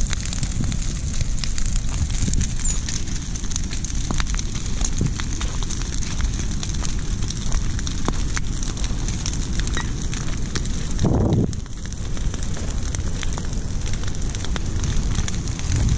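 Brush pile of dry tree limbs burning, crackling with many sharp pops and snaps over a steady low rumble.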